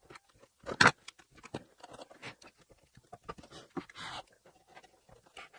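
A screwdriver knocking and scraping against a tube radio's metal chassis and wooden cabinet while prying loose rubber grommets stuck to the cabinet. Irregular small clicks and knocks, a sharper knock about a second in and a short scrape near the middle.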